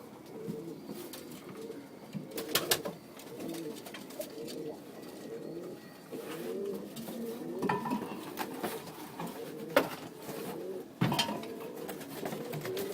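Many domestic pigeons cooing together with a low, wavering murmur. A few sharp clatters cut in, the loudest about two and a half seconds in and again near the end.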